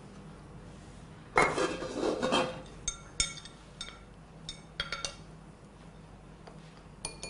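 Kitchen utensils clattering and clinking against pots and dishes: a loud scraping clatter lasting about a second, about a second and a half in, then several short clinks that ring briefly.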